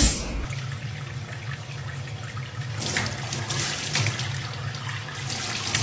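Faucet running a steady stream of water into a stainless steel sink, with splashing as a small monkey is washed in it. It starts about half a second in.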